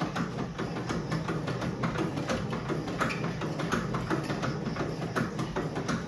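Elliptical cross trainer being pedalled: a steady low hum from the running flywheel with many clicks and knocks from the moving pedal arms and linkage.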